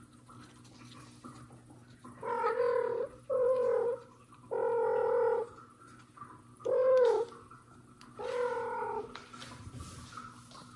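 Mother cat calling to her kitten with a series of five gentle meows, each under a second long; the fourth is shorter and rises then falls in pitch.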